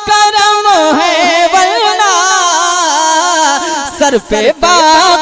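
A male naat singer's voice through a microphone, drawing out one long wavering, ornamented sung note with no words. It breaks off briefly about four seconds in before the next phrase starts.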